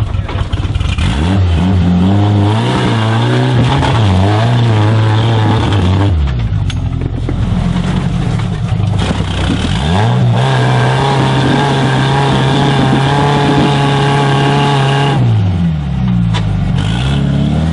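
Off-road crawler's engine revving hard under load as the rig climbs an obstacle. The revs rise and fall repeatedly, hold high and steady for about five seconds from roughly ten seconds in, then drop and surge again near the end.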